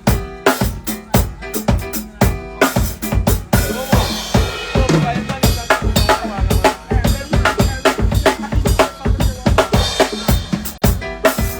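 Loud music driven by a drum kit: rapid, steady kick and snare hits with bass and other pitched instruments sounding underneath.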